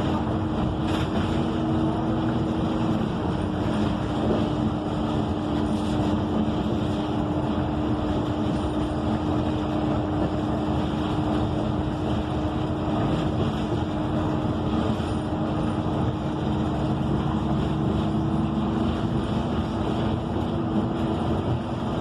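Inside a transit bus under way: the Cummins Westport ISL G natural-gas engine hums steadily over road and cabin noise, with no air-conditioning fan running.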